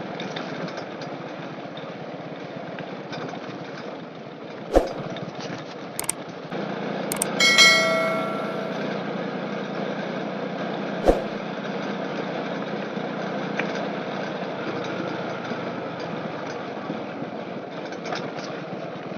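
Steady running of the engine of the vehicle carrying the camera on a road ride. Several sharp clicks come over it, and a bell-like chime rings out near the middle, the loudest sound.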